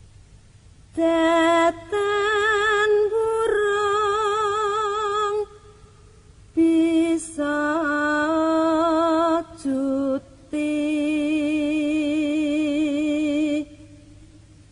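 A woman's voice singing a slow, unaccompanied melody in long held notes with a wide vibrato, in several phrases broken by short pauses.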